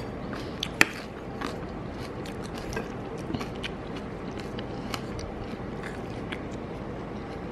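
A person chewing a mouthful of food, with many small scattered clicks and crunches and one sharp click about a second in.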